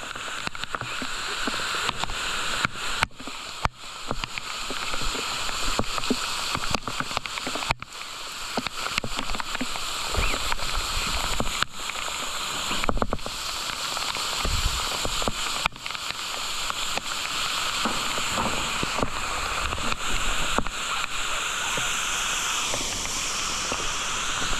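Cave waterfall spray pouring onto a caver and his helmet camera: a dense, steady rush of falling water with many sharp clicks and knocks of drops striking close by.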